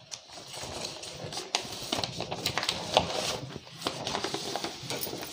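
Sheets of paper rustling and being shuffled, with irregular light taps and handling noises.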